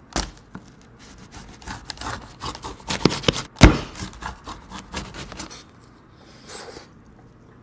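Pizza wheel cutter rolling and crunching through the baked crust of a pepperoni pizza, scraping on a wooden board in a quick run of strokes, with a loud knock about three and a half seconds in.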